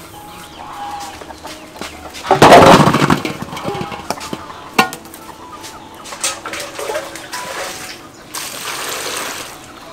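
A basketful of passion fruit tipped into an aluminium basin, tumbling and knocking against the metal in a loud clatter about two seconds in, with a few single knocks after. Near the end, a metal pot scoops water from a clay jar.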